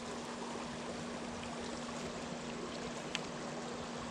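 River water flowing steadily, a constant rushing noise, with a faint steady hum under it and a single light click about three seconds in.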